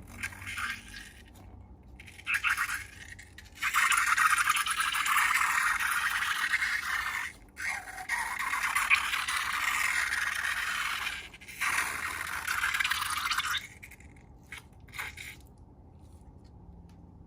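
Crackly, gritty scraping of slime being worked during slime-making. It comes as a few short scrapes, then long continuous stretches from about four seconds in to about thirteen seconds, broken twice briefly.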